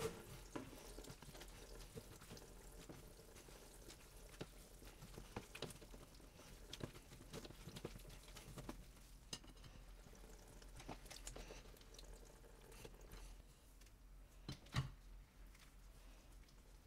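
Faint wet squishing and dripping as salted eggplant strips are pressed down by hand in a plastic colander, with scattered soft clicks and knocks of the colander and a plate; one sharper knock near the end.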